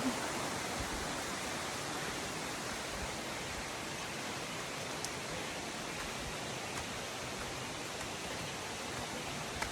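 Steady rush of flowing water from a stream or waterfall, an even hiss with a couple of faint clicks.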